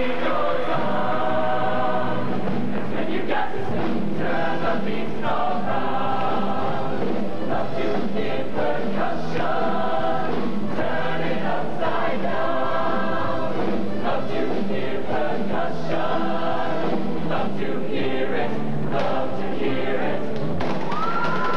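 Mixed show choir singing an upbeat number in full voice, many voices in harmony, over a driving beat.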